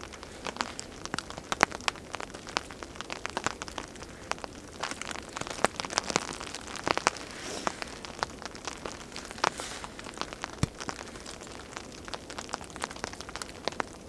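A small fire of wet sticks crackling, with irregular sharp pops several times a second, mixed with rain pattering and dripping.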